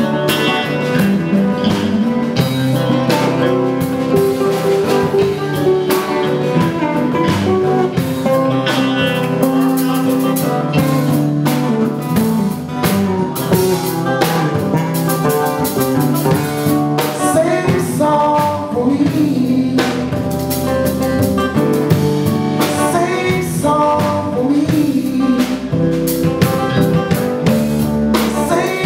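Live band playing: drum kit, bass guitar, electric guitar and acoustic guitar.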